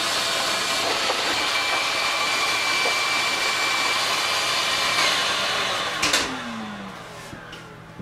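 Shop vac running with a steady high whine, switched off about six seconds in, its motor humming down in falling pitch as it spins to a stop.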